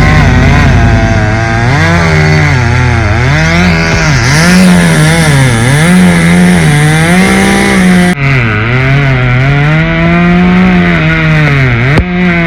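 Two-stroke chainsaw cutting into a pine trunk, its high engine note rising and falling about once a second as the chain bites and frees in the cut.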